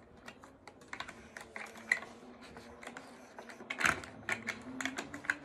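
Small plastic game pieces clicking and rattling as they are fitted by hand into a plastic game tray, in quick irregular taps. A single sharper click about four seconds in.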